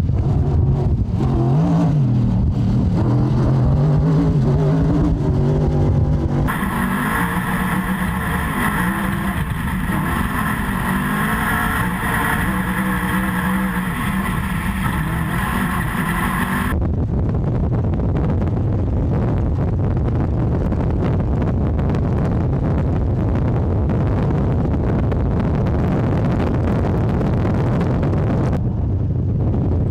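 Toyota off-road trophy truck's race engine running hard at speed, rising and falling in pitch through the first several seconds. From about six to seventeen seconds in, it drones steadily at high revs, heard from inside the cab. After that it is heard from alongside under a steady rush of noise.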